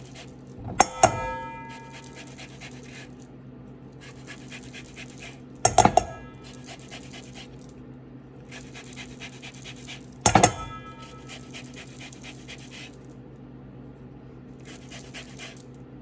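Lemon being rubbed over a metal zester: repeated rasping strokes, each lasting about a second. Three sharp clinks that ring briefly break in, about a second in, near the middle, and about ten seconds in.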